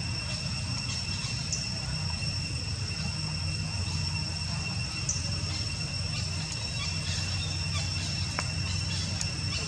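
Insects, crickets or cicadas, droning steadily in two high unbroken tones over a steady low rumble, with a few faint clicks.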